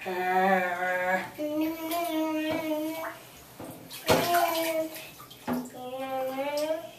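A voice making four long, drawn-out sing-song vowel sounds, with light splashing of bath water in the tub.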